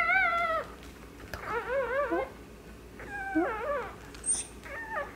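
Newborn puppy crying: about four short, high-pitched, wavering squeals, each under a second, that carry from where the pup lies apart from its mother.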